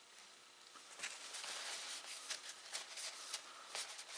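Paper towel crinkling and rustling as a steel chisel is wiped clean after stropping. The rustling starts about a second in and goes on in quick, uneven scrunches.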